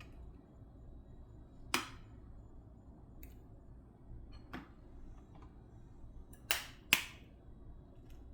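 A few sharp clicks and knocks over a low, steady background. A loud one comes about two seconds in, another at about four and a half seconds, and a close pair near the end, the second of which is the loudest.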